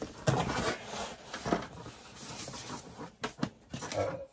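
Cardboard box flap being opened and a polystyrene foam packing insert lifted out: rustling and scraping with several light knocks.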